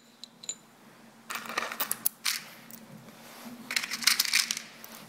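A forged aluminum clutch lever clinking and scraping against a drilled aluminum fixture plate as it is set in place by hand: two short clusters of light metallic clicks, a couple of seconds apart.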